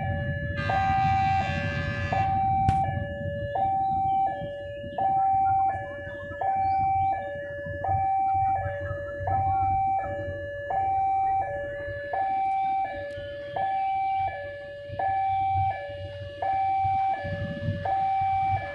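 Railway level crossing warning alarm repeating a two-note high-low tone, changing note about every 0.7 s. A loud horn blast sounds once near the start for about a second and a half, over the low rumble of idling vehicle engines.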